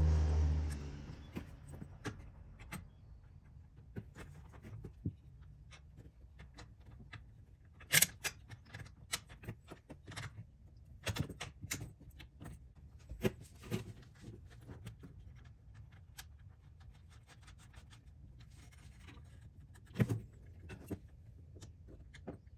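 Scattered clicks, clinks and knocks of hand tools and metal hardware while a throttle pedal is being mounted, with a few sharper knocks spread through. A motor hum fades out in the first second or so.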